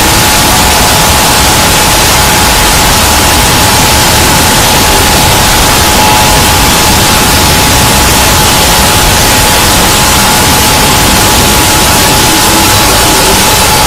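Very loud, steady static noise: a deliberately ear-splitting digital glitch effect, with a thin steady tone running through it.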